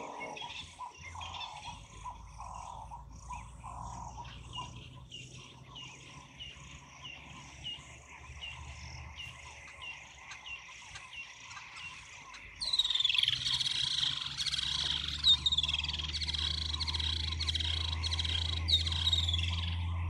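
Outdoor ambience of small birds chirping: short, high, repeated calls, then a louder, denser chorus of chirping that starts abruptly a little past halfway, over a low steady hum.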